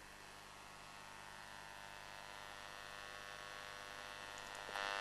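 Faint mains hum from the speaker of a SABA Königsfeld 14 tube radio, switched on for the first time after repair. The hum grows slowly louder and jumps up near the end.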